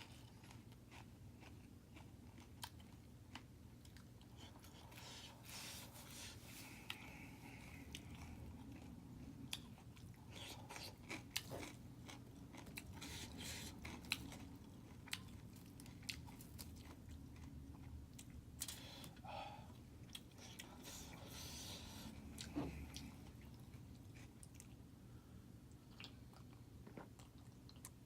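A person chewing and biting food, with scattered sharp mouth clicks and short crunchy patches.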